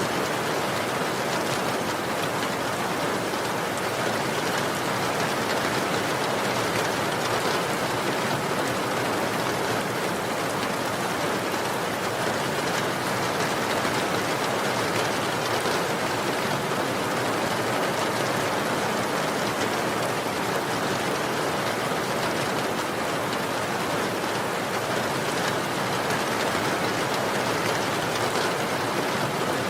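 Steady rain falling, an even hiss of many drops with no gusts or breaks.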